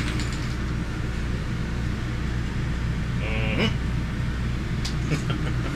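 Steady low mechanical hum of a tour bus interior, with a brief pitched sound about three seconds in and a couple of faint clicks near the end.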